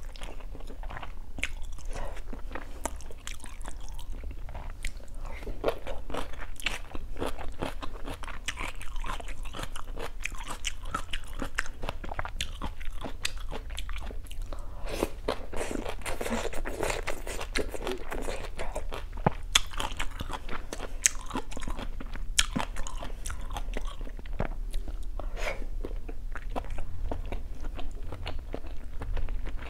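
A person eating close to the microphone, a mouthful of black bean noodles: steady, irregular chewing with wet mouth clicks and small crunches.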